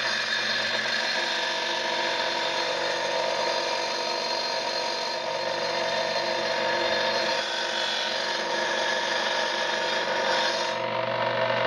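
Power saw cutting a notch into a wall tile, grinding steadily and stopping about a second before the end.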